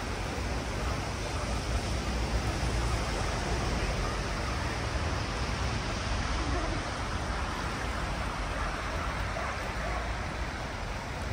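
Steady rush of a swollen, fast-flowing flooded river, with a low rumble underneath.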